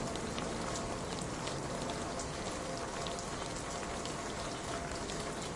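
Steady rain falling, a continuous hiss with many separate drops ticking sharply on a hard surface.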